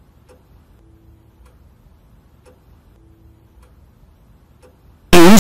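Faint, steady clock ticking in an otherwise quiet pause. About five seconds in it is cut off by a sudden, extremely loud distorted blast of sound.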